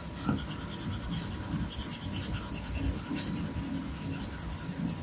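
Stylus tip (Apple Pencil) rubbing across the iPad Pro's glass screen in quick, repeated strokes, a dry scratchy sound, with a sharp tap about a third of a second in as the tip meets the glass.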